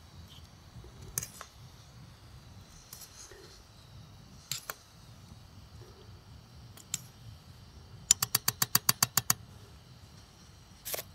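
A metal spoon clinking against a stainless-steel coffee pot (džezva) as coffee is stirred. There are a few single clinks, then a quick run of about a dozen clinks over a second or so about eight seconds in, and one more near the end.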